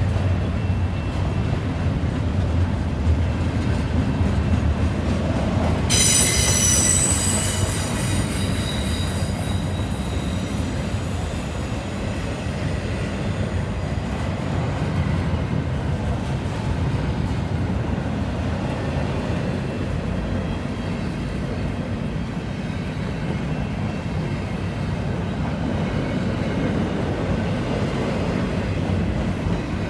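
Double-stack container cars of a freight train rolling past with a steady rumble of steel wheels on rail. About six seconds in, a high-pitched wheel squeal breaks out and fades away over several seconds, typical of wheels grinding through the curve.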